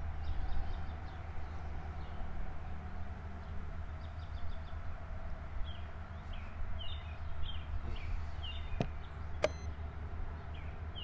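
Small birds chirping in a quick series through the second half, over a steady low background rumble. Two sharp clicks about nine seconds in, a chess piece set down and the chess clock pressed.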